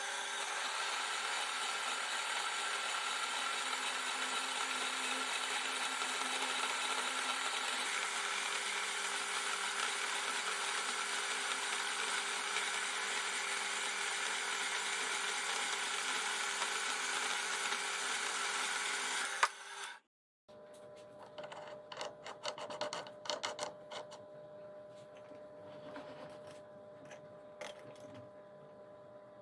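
Metal lathe running, cutting steel: a steady hiss with a constant machine hum. Shortly after two-thirds of the way in, this stops abruptly and gives way to quieter, scattered clicks and rattles of metal work.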